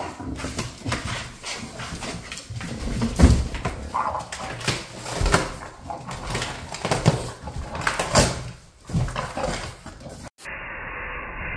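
English bulldog ripping and chewing a cardboard box: irregular tearing, crunching and scraping of corrugated cardboard, mixed with the dog's own vocal noises. The sound drops out briefly near the end and comes back muffled.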